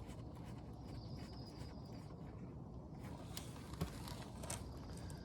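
A few light metallic clicks of tools or bolts being handled during brake caliper removal, the sharpest about four seconds in, over steady low background noise.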